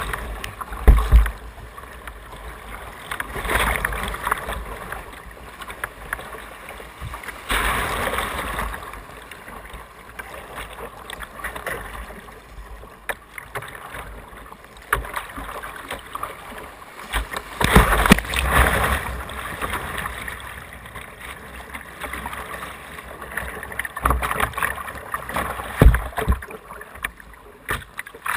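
Whitewater rushing and splashing around a kayak's bow, a steady wash of noise with louder surges of spray now and then, the strongest about 8, 18 and 26 seconds in.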